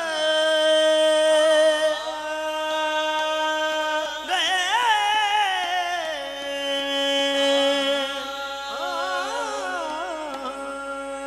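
Qawwali singing with harmonium: a voice holds long sustained notes, breaking into wavering, ornamented runs twice, over a steady harmonium drone.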